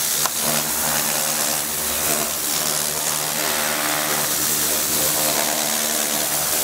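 High-pressure washer running steadily, its water jet hissing against wood as it strips the bark off a tree root, over the even hum of the pump motor. A short click comes just after the start.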